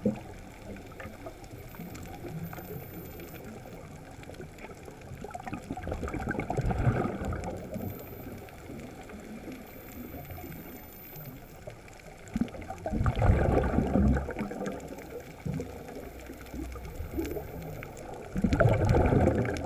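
Underwater ambience with three loud surges of rushing, bubbling noise about six seconds apart, typical of a snuba diver breathing out through the regulator.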